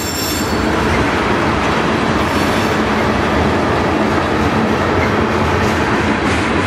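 Freight train tank cars rolling past close by with a steady, loud rumble of wheels on rail and some clickety-clack over the joints. A brief high wheel squeal sounds in the first half second.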